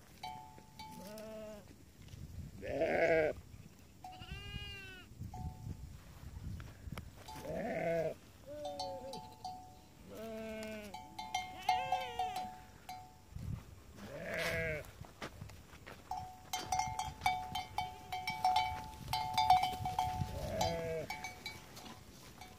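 Goats and sheep in a flock bleating over and over, each call about a second long and at varying pitch. Livestock bells ring and clink among them, most busily near the end.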